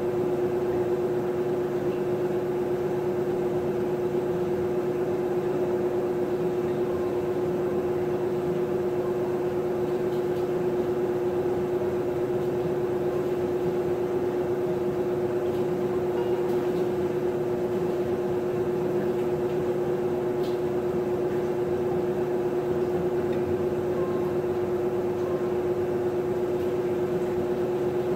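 Maytag top-load agitator washing machine running with a steady, even hum that holds one pitch throughout.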